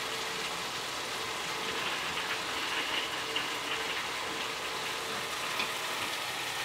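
Ground meat sizzling in a frying pan on the stove: a steady frying hiss with a few faint pops.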